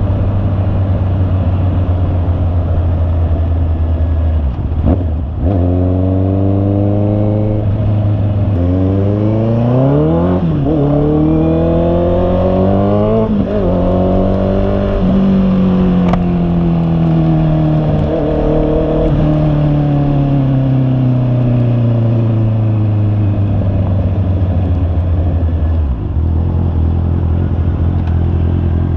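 Honda CB650R's 649 cc inline-four engine, steady at idle, then climbing in pitch in several rising pulls between about five and fourteen seconds in. It then winds slowly down over about ten seconds and settles back to a steady idle near the end.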